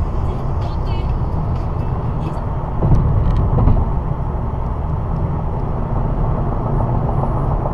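A car on the move: a steady low rumble of engine and tyres on the road.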